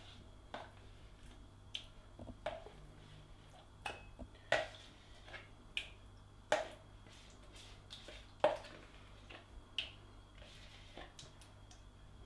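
A spoon scooping thick Greek yogurt out of a tub into a bowl, knocking against the rim and the tub: a short sharp clink about every one to two seconds.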